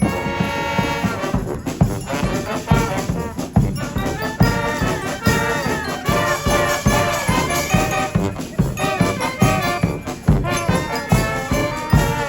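Brass street band playing: trumpets and trombones carry a melody over a steady drum beat.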